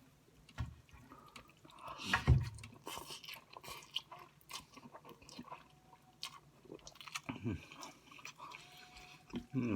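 A person chewing takeout food close to the microphone: irregular wet mouth clicks and crunches, with a louder bite or knock about two seconds in.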